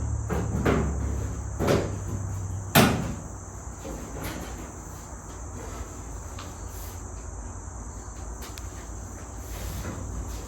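Three sharp knocks of sheet metal being handled and set against a car body in the first three seconds, the last the loudest, then a steady high-pitched hiss underneath.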